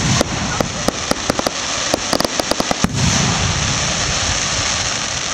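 Aerial firework shells bursting overhead: a rapid string of sharp crackling pops over the first three seconds, then a loud steady rushing hiss with a low rumble underneath.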